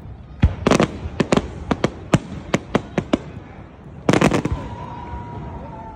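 Fireworks display: a deep boom about half a second in, then a rapid run of sharp bangs and crackling reports from bursting shells, with another dense cluster of bangs about four seconds in. A thin steady whistle follows near the end.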